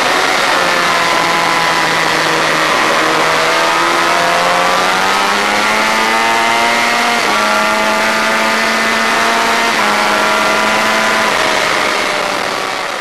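Honda VFR400 V4 race engine at high revs, recorded on board the motorcycle: the revs drop as the rider rolls off the throttle, then climb hard with a shift about 7 seconds in and another about 10 seconds in. The sound fades out near the end.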